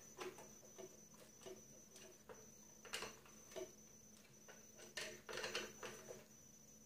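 Faint, scattered clicks and small knocks of a hand screwdriver working the terminal screws of an electric panel heater's thermostat, tightening the wires into its plastic terminal block.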